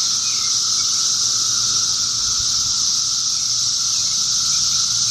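Loud, continuous chorus of periodical cicadas (Brood XIII): a steady high-pitched buzzing drone with a lower, steady hum beneath it.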